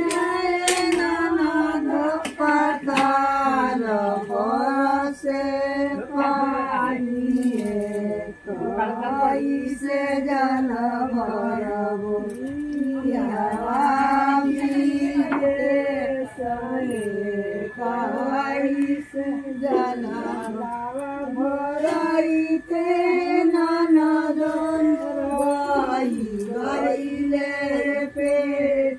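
Women singing a folk song together in unison, unaccompanied, in one continuous melodic line with only brief pauses for breath.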